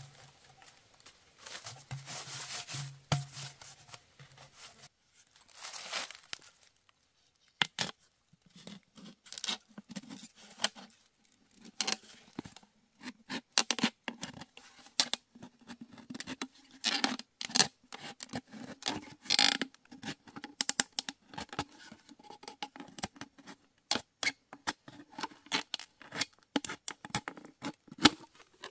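A large knife blade cutting and scraping a thin plastic water bottle: the plastic crackles and crinkles in sharp, irregular clicks, thicker from a few seconds in onward.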